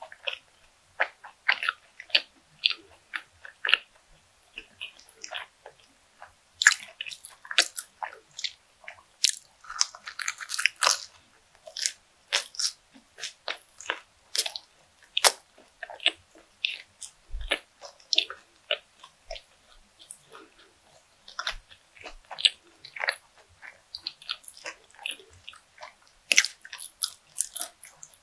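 Close-miked chewing of bread: a steady, irregular run of short crunches and mouth clicks, thickest about ten seconds in.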